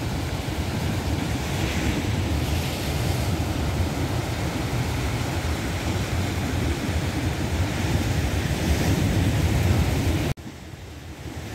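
Wind buffeting the microphone over the steady wash of sea and surf. The sound drops abruptly to a quieter wash about ten seconds in.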